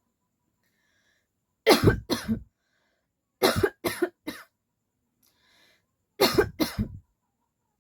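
A woman coughing deliberately in three short bouts: two coughs, then three, then two, with pauses in between.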